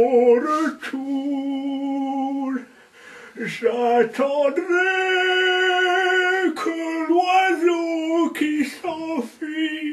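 A man singing a slow tune unaccompanied, in long, wavering held notes with a few brief pauses between phrases.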